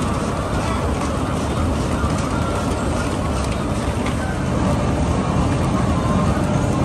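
Poultry-shed manure belt conveyors running, a steady mechanical rumble with chicken muck tumbling off the end of a belt.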